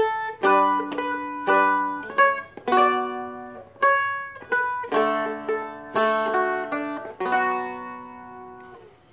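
Seagull Merlin M4, a four-string fretted dulcimer, picked and strummed slowly: melody notes with chords, about two a second. The last chord rings out and fades away.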